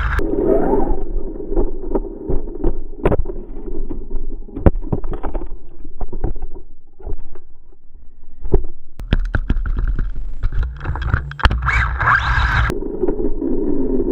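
Onboard sound of a 1/10-scale RC buggy driving over rough ground: chassis and suspension clattering with many sharp knocks, under the whine of its brushless motor, which rises in pitch and gets louder for a few seconds near the end.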